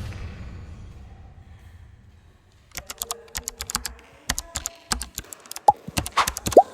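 A sound dies away over the first two seconds, then an irregular run of sharp clicks and taps like typing on a computer keyboard, with a couple of short pitched blips near the end.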